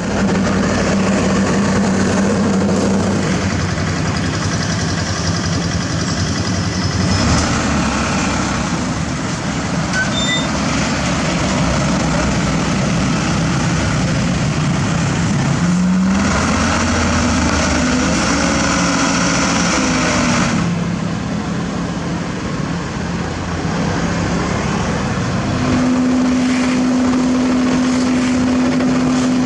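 Diesel engines of heavy asphalt paving machinery and trucks running steadily. The engine pitch shifts several times, rising about halfway through, and a steady hum holds near the end.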